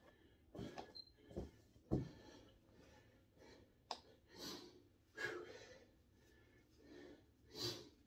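A weightlifter's heavy breathing: about half a dozen short, forceful breaths in and out, spaced unevenly, as he braces before a heavy barbell row. A couple of faint sharp clicks come in between.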